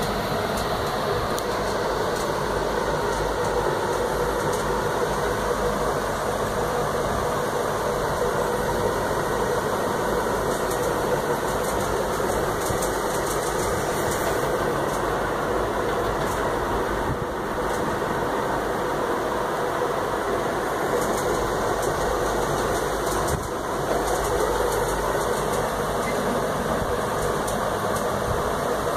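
Steady mechanical hum, like a small motor running, unbroken throughout.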